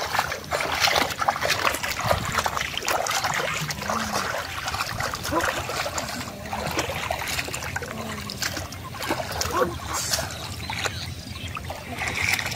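Hands and legs splashing and churning in shallow muddy water, with continual dripping and trickling, as fish are groped for by hand.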